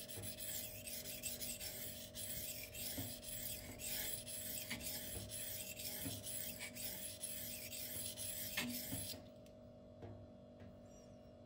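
Steel knife blade (the M390 blade of a Twosun TS264 folder) stroked back and forth across a sharpening whetstone, a gritty rasp repeating with each stroke, grinding one bevel to raise a burr. The strokes stop about nine seconds in.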